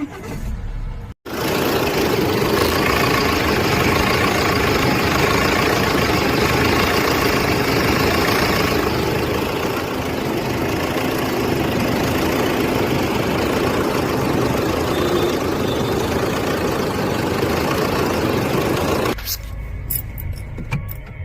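Tata Harrier's 2.0-litre Kryotec turbo-diesel engine running steadily and loudly with its newly fitted alternator pulley. It drops away abruptly near the end.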